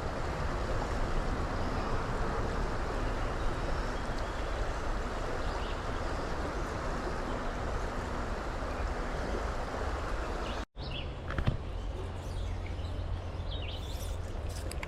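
Steady rush of flowing creek water. About two-thirds of the way through, the sound cuts out for an instant, then resumes with a deeper rumble and a few short high chirps.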